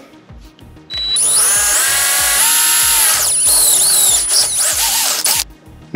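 Cordless drill with a 3/16-inch bit drilling through the sheet-metal drip rail of a pickup roof. The motor whines up to speed about a second in, runs with its pitch shifting as the bit cuts, and stops about half a second before the end.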